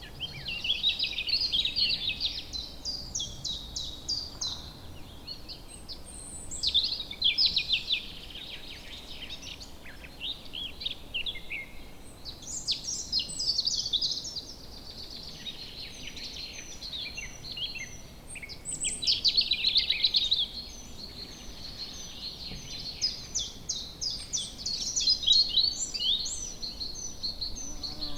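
Woodland birds singing, with bursts of fast chirps and trills overlapping every few seconds, over a faint steady background hiss.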